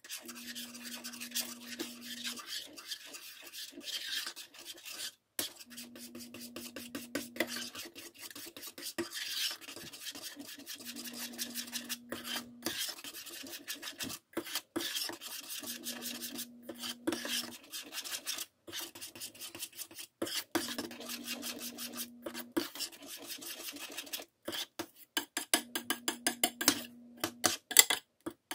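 Metal spoon scraping and stirring thick mung bean batter against the sides and bottom of a stainless steel saucepan: a rapid, continuous run of rasping strokes. The strokes grow sharper and louder near the end as the batter thickens into a paste.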